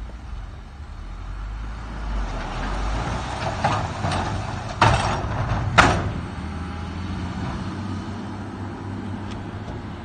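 Heavy diesel earthmoving machinery running with a steady low drone that grows louder toward the middle, broken by two sharp noisy bursts about a second apart.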